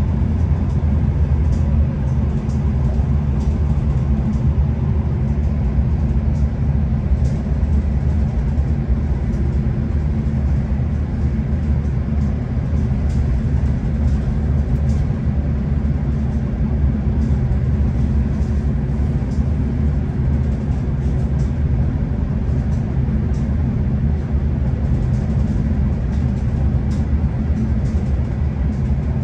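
Steady low rumble of a V/Line passenger train running along the track, heard from inside the carriage, with faint scattered ticks.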